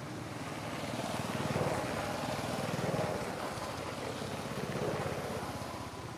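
An engine running with a rapid, even pulse, getting louder after about a second and fading near the end, as a passing vehicle does.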